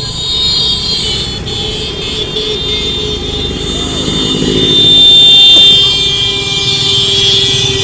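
Road vehicles in a procession running, with horns sounding; a long steady horn note is loudest about five seconds in.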